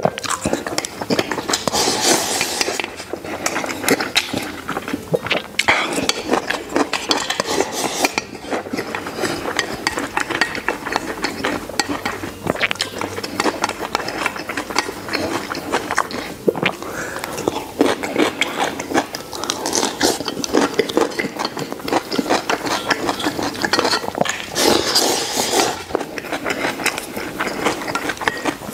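Close-miked eating: a mouthful of braised pork belly and rice being chewed, a dense run of small wet clicks, with chopsticks now and then clinking and scraping on a steel bowl.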